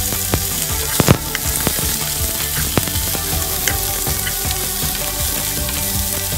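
Diced zucchini sizzling in hot oil in a nonstick pan as it is stirred with a wooden spoon. A sharp knock about a second in, with a few lighter clicks.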